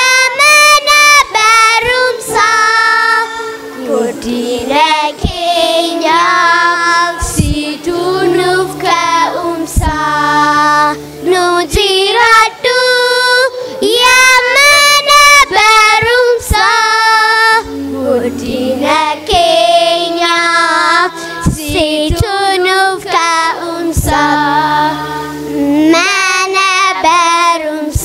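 Children singing an Afaan Oromo song through a microphone, over instrumental backing with low sustained bass notes.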